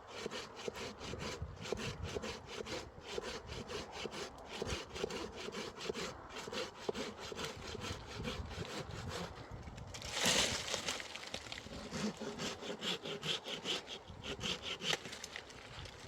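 Hand saw cutting through wood in steady, quick back-and-forth strokes, with one louder rasp about ten seconds in.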